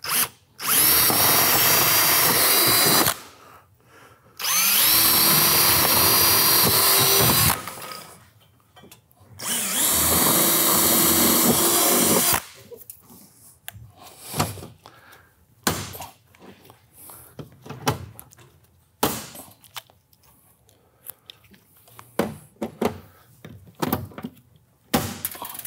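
Cordless drill boring holes through metal sidewall flashing for stainless steel pop rivets, in three runs of about three seconds each with a steady motor whine. After these come a series of short, sharp clicks and snaps as the rivets are set with a hand pop-rivet tool.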